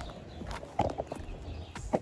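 Footsteps: a few uneven steps, the two loudest about a second apart.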